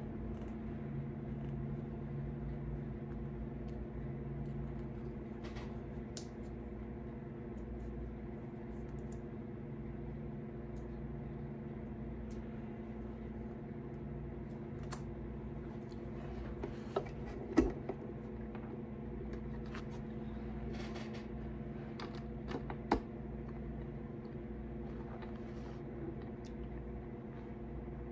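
Light clicks and scrapes of small hand tools working on a fiddle at the bench, over a steady background hum. Two sharper clicks stand out, one a little past the middle and another about five seconds later.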